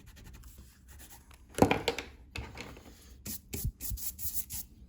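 Short scratchy drawing strokes on paper, coming in a quick series in the second half, with a single louder knock or rustle about a second and a half in.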